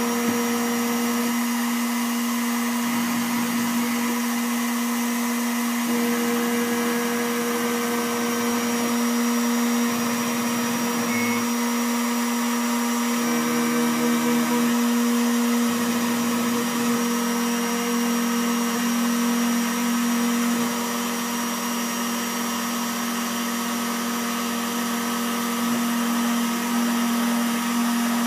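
CNC router spindle motor running steadily with a constant whine, its pitch and overtones shifting slightly now and then.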